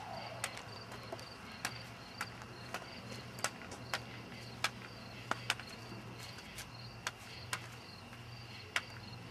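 Faint cricket chirping: a short high chirp repeating steadily, a few times a second, with scattered sharp clicks and a low hum underneath.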